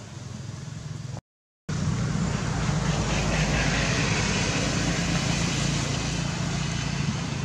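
A motor vehicle's engine hums steadily with background noise. It starts after a brief cut to silence about a second in.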